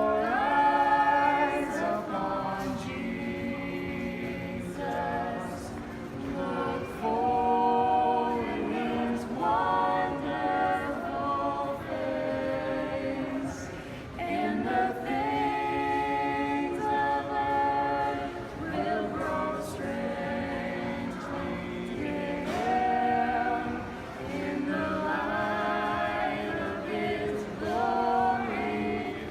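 A group of voices singing together, choir-style.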